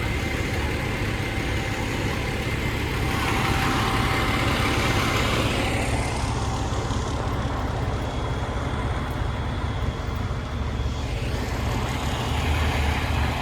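Fire truck engine running steadily, with road traffic noise; a louder rushing sound swells for a few seconds about three seconds in.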